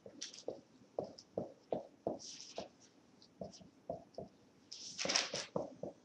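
Marker writing on a whiteboard: a run of short taps and scratchy squeaks as letters are drawn, with a longer, louder stroke just after five seconds in.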